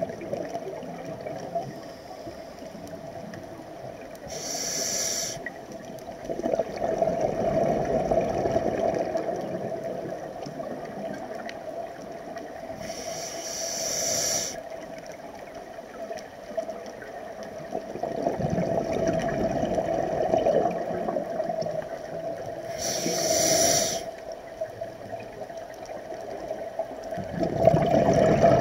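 Scuba regulator breathing underwater: three slow breaths, each a short hissing inhale followed by a few seconds of bubbling, rushing exhale.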